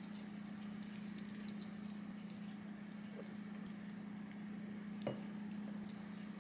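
Faint wet squishing and light crackling of a gloved hand and spoon working chili-and-chive kimchi stuffing into cucumbers in a glass bowl, with a single knock about five seconds in. A steady low hum runs underneath.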